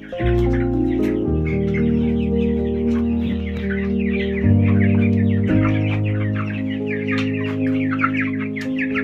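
A flock of chickens clucking and calling over background music of held chords with a bass line that changes every second or so.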